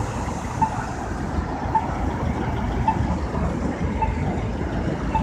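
Steady street traffic noise from passing cars. A crosswalk signal beeps briefly about once a second.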